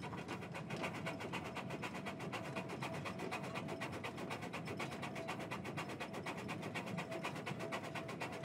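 Frisco Silver Dollar Line steam train running along the track, heard from an open passenger car as a rapid, even beat of knocks that holds steady throughout.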